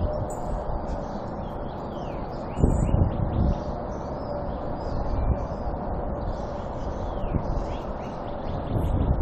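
A steady low rumble, swelling briefly about two and a half seconds in, with songbirds chirping over it. It is the kind of outdoor drone recorded as a mysterious 'sky sound'.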